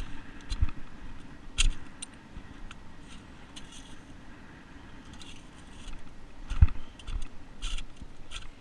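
Digging among beach rocks and stones: irregular knocks, clacks and scraping of a digging tool and stones, with two louder knocks about a second and a half in and again about six and a half seconds in.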